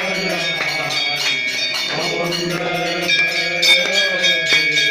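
Temple bells rung continuously for an aarti, struck over and over with a steady ringing that grows louder about three seconds in, while voices sing the aarti over them.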